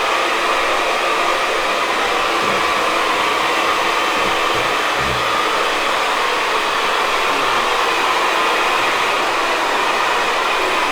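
Hair dryer blowing steadily, a constant airy rush, with a few soft low thumps near the middle.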